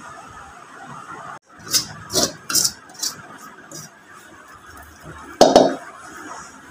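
Stainless-steel spoon clinking and scraping against a steel plate while mixing mashed potato filling. There are several quick clinks about two seconds in and a louder clatter near the end.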